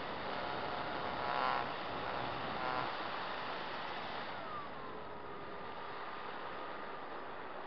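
Onboard audio from an Apprentice RC trainer plane in flight: steady wind and propeller rush over the electric motor's whine, which swells twice in the first three seconds, then glides down in pitch about four seconds in as the motor slows.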